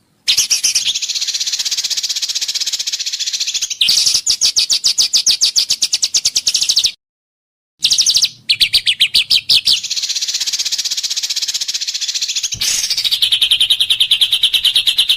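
Songbird training recording ('masteran'): long runs of rapid, evenly repeated high notes, the harsh 'tembakan' shot-like song, in several phrases that start and stop abruptly, with a short full silence about halfway through.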